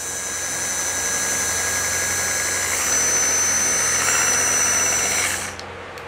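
Small electric motor of a rechargeable handheld egg beater (whisk) running in the air with a steady whine. It gets a little louder about halfway through and stops shortly before the end.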